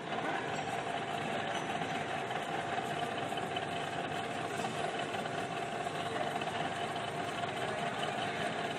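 Metalworking machine tool running steadily: an even mechanical noise with a constant whine.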